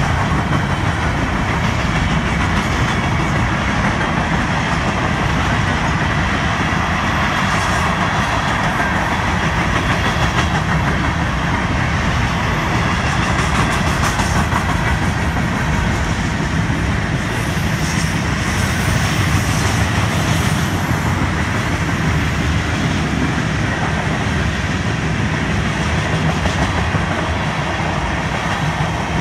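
Steady rolling noise of a long Florida East Coast Railway freight train's steel wheels on the rails as hoppers, autorack cars and a tank car pass close by, with occasional clicks.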